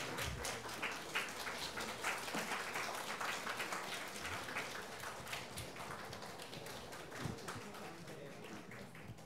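A small audience clapping, with dense, quick claps that slowly die away.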